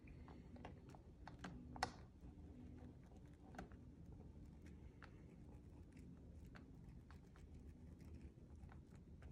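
Faint, irregular light clicks and taps as a water-soluble gel stick is worked in circles over sketchbook paper, over a low room hum.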